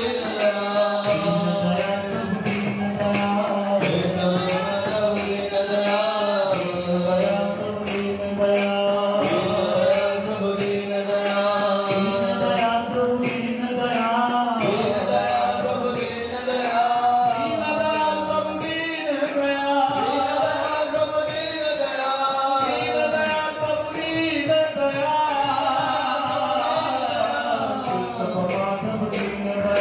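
Devotional kirtan: voices chanting a melody with a group joining, over a steady low drone, with hand cymbals struck on a steady beat of about two a second.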